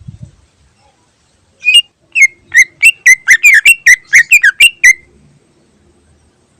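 Green leafbird (cucak ijo) singing a fast run of about fourteen loud, sharp whistled notes over about three seconds, beginning just under two seconds in.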